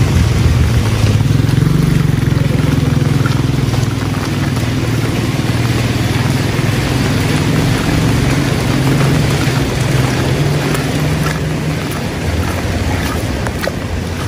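Steady rain falling, with a continuous low rumble underneath.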